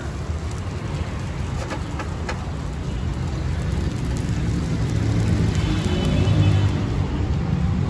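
Parathas sizzling in oil on a large iron tawa, over a steady street-side rumble that grows louder about five seconds in as a vehicle passes.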